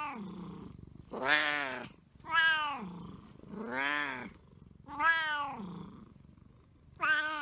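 Siamese cat meowing over and over: about six long, loud meows in a row, each rising and then falling in pitch, spaced roughly a second apart.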